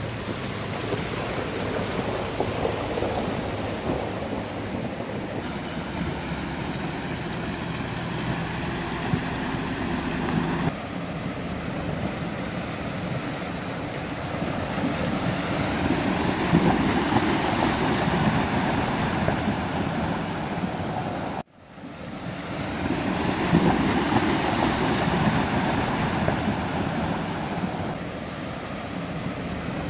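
SUVs fording a shallow river: water rushing and splashing around the wheels over the running engines, swelling twice as vehicles push through the current. The sound cuts out for a moment about two-thirds of the way in.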